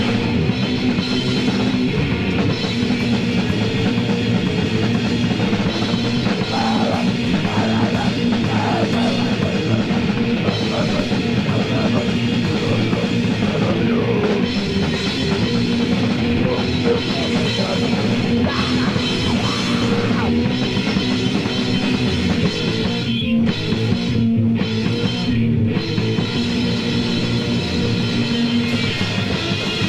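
Extreme metal band playing live: distorted electric guitars, bass and a pounding drum kit in a loud, dense, unbroken wall of sound.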